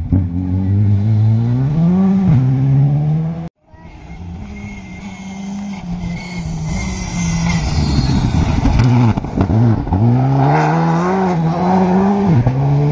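Rally car engines at full throttle, the pitch climbing and dropping sharply with each gear change. After a brief cut about three and a half seconds in, a car approaches and passes close, its tyres on the loose gravel adding a noisy hiss under the engine.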